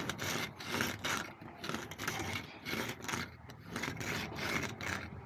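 Joint roller working along mortar joints in brickwork: repeated rough scraping strokes, about two a second, as the jointing block smooths the mortar.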